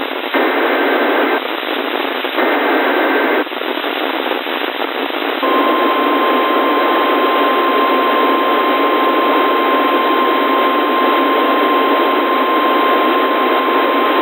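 NOAA Weather Radio emergency alert heard through radio hiss. Two short bursts of the warbling SAME data header come in the first few seconds. After a pause, the steady single-pitch 1050 Hz warning alarm tone sounds for about nine seconds, signalling that a warning is about to be read.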